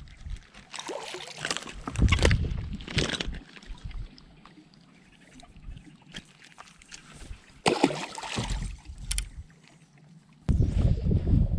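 Water sloshing and lapping against a bass boat's hull in uneven bursts, with a low rumble coming in near the end.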